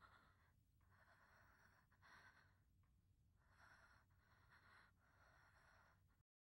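Near silence: a very faint hiss that cuts to dead silence near the end.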